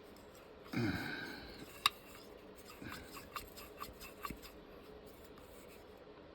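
Quiet hand work on metal parts: a short scrape about a second in, a single sharp click, then a run of small light clicks and taps.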